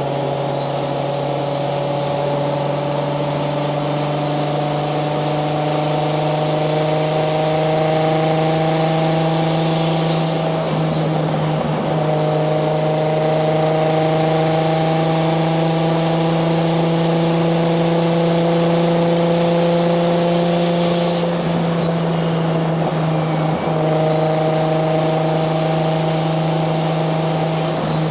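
Turbocharged Toyota 1JZ-GTE VVTi straight-six in a Nissan 240SX pulling under light throttle, its engine note and a high turbo whine rising slowly together. Both fall away about ten seconds in and again about twenty-one seconds in, then build again each time.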